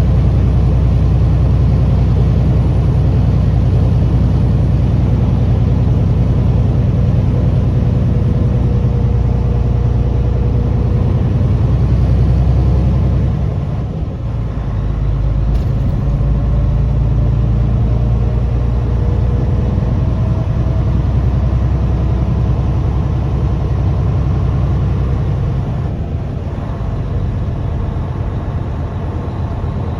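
Truck engine running steadily under way, with road noise; the engine note dips briefly about halfway through and again a few seconds before the end.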